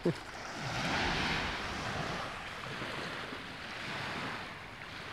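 Small sea waves breaking and washing up the beach, the surf swelling about a second in and again near four seconds.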